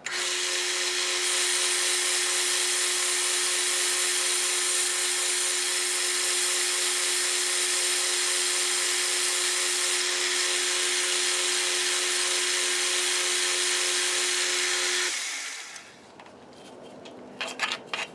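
Metal lathe running with a high-speed-steel boring bar taking a slow cut inside a cast-iron backplate: a steady whine with a hum under it, which stops about 15 seconds in. A few light scrapes and taps follow near the end as a brush sweeps chips from the chuck.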